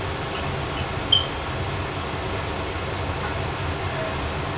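A steady mechanical hum and hiss, like a running fan, with one brief short high-pitched squeak about a second in.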